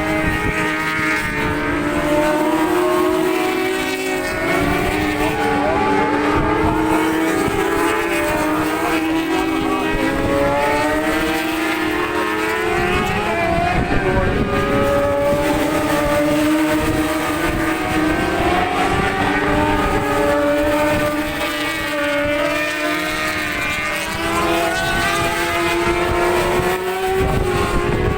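Racing superbike engines revving hard, several at once, their pitch climbing repeatedly and dropping at each gear change as the bikes lap. Wind buffets the microphone.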